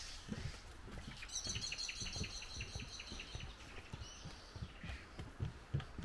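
Footsteps thudding on a wooden boardwalk, about two a second. From about a second in, a songbird sings a rapid run of repeated high notes lasting about two and a half seconds.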